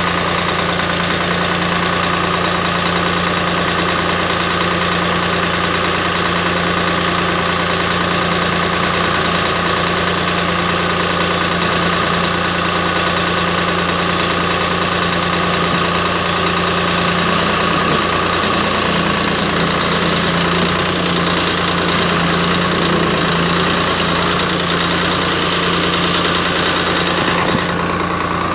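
Tractor engine running steadily while working a hitched backhoe loader. Its note rises a little for a few seconds past the middle, and a brief falling whine comes near the end.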